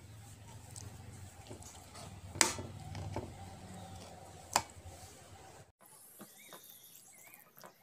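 A steel spoon mashing roasted eggplant in a brass plate, with two sharp clinks of spoon on metal, the first about two and a half seconds in and the second two seconds later. Near the end, after a cut, fainter short sounds of the mash being mixed by hand.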